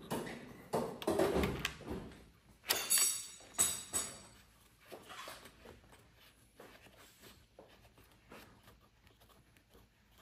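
Irregular clicks and knocks of a plastic power steering fluid reservoir and its mounting bolt being worked into place on an engine, with two sharp clinks about three seconds in and lighter taps after.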